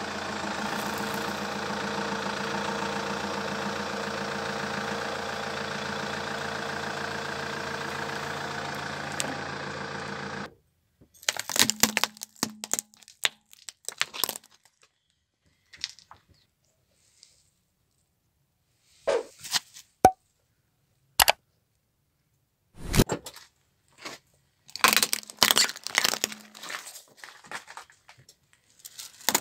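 A steady drone with several held tones for about the first ten seconds, cutting off abruptly; then a string of separate sharp cracks and crunches as objects are crushed under a car tyre.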